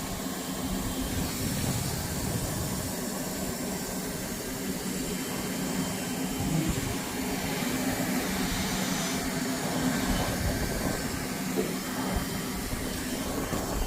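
Steady mechanical drone with a low, even hum.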